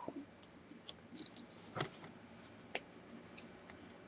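Faint scattered clicks and light rustling from plastic surprise eggs and small toys being handled and opened.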